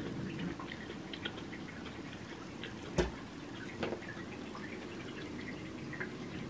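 Eating sounds: chewing with small wet mouth clicks over a steady low background noise, and a sharp clink of a metal fork against a ceramic plate about three seconds in, with a lighter knock a second later.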